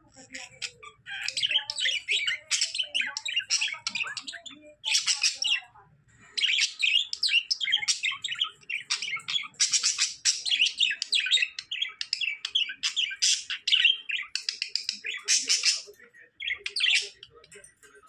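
Pet budgerigars chattering: long runs of rapid, high chirps and squeaks broken by short pauses, dying away shortly before the end.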